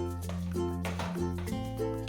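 Background music: an upbeat track with a steady beat and a plucked melody.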